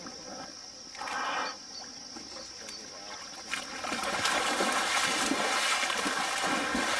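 Crickets trilling as a steady high drone. About four seconds in, a louder rough noise sets in and carries on over it.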